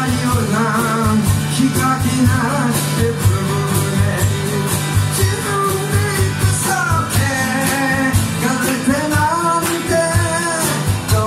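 Live song: a male voice singing over a strummed acoustic guitar, with percussion keeping a steady beat.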